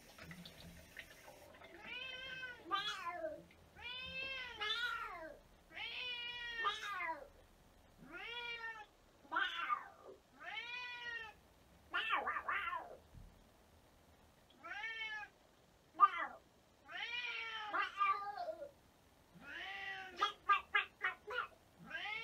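Domestic cat meowing over and over: a long series of rising-and-falling meows, many in quick pairs, with a run of short rapid calls near the end.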